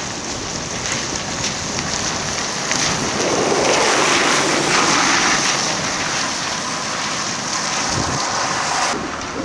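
Double-deck trolleybus passing close by on a wet road, a steady rushing noise from its tyres and body that swells as it goes past about four seconds in. Wind buffets the microphone throughout.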